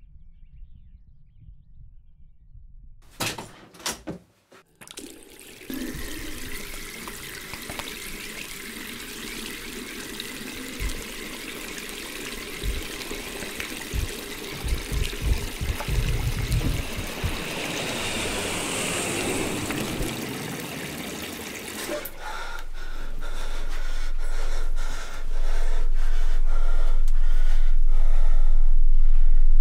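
Water running from a tap over hands being washed, a dense steady splashing that cuts off suddenly about two-thirds of the way through. After it stops, a low hum swells steadily louder.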